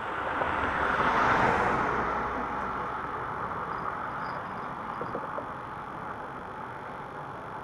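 Road traffic on the bridge: a vehicle passes, swelling to its loudest about a second in and then slowly fading away.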